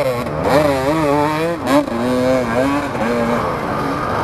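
Enduro motorcycle engine revving hard under load on a steep muddy hill climb, its pitch rising and falling with the throttle, then fading after about three seconds. A short sharp crack about a second and a half in.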